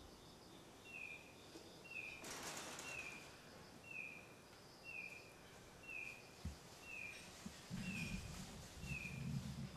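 A small bird calling over and over, a short high falling chirp about every three quarters of a second, with a brief rustle about two seconds in and a low rumble near the end.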